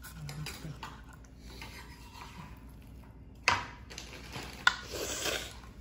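Kitchen knife cutting an onion on a plastic cutting board: a few light taps, then two sharp knocks of the blade on the board about a second apart, with some rustling after them.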